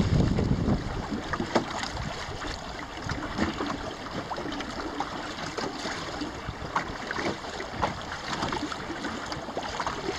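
Water splashing and lapping against the hull of a small sailboat under way, a busy run of small irregular splashes. Wind rumbles on the microphone at the start and dies away within the first second.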